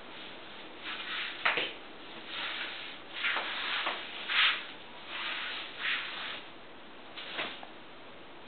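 Feet scuffing and sliding on a floor during an unaccompanied dance, with a few sharp knocks of steps among a string of short scrapes.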